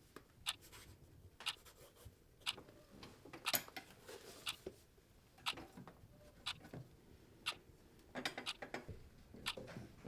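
A clock ticking steadily, about one tick a second, with soft scraping and rubbing sounds between the ticks.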